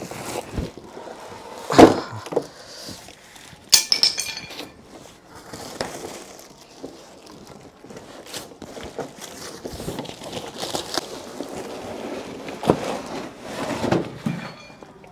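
Large cardboard box being handled and a heavy plastic table top in plastic wrap pulled out of it: scattered knocks and thuds, the loudest about two seconds in, with cardboard scraping and a crackle of rustling wrap around four seconds in.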